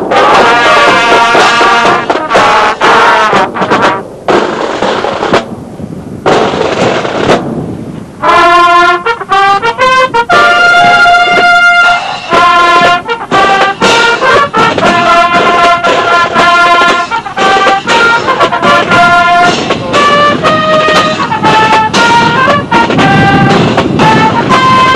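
Marching band playing loudly: drums with brass at first, then the brass section (trombones and trumpets) playing a tune in clear held notes from about eight seconds in.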